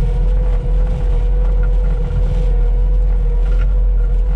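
Cat 259D compact track loader travelling, its diesel engine running steadily with a constant whine over a deep rumble.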